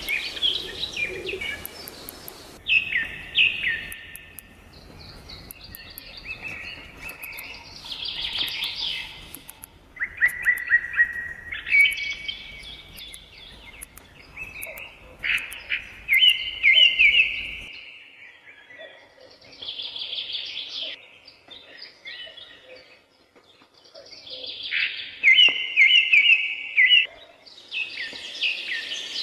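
Birds chirping, with short trilled calls coming in bursts separated by brief pauses.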